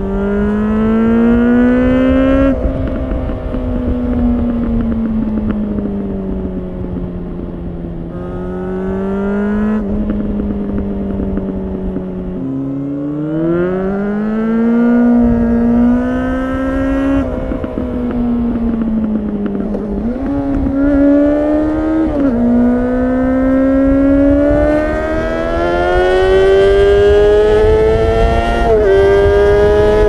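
A 2004 Honda CBR600RR's 600 cc inline-four, breathing through a LeoVince slip-on muffler with no catalytic converter, pulling under way with wind rush underneath. The engine pitch climbs and drops back again and again, with sharp drops near 2.5, 10 and 17 seconds where the rider shifts gear or rolls off, and a deeper dip at about 12 seconds before it climbs again.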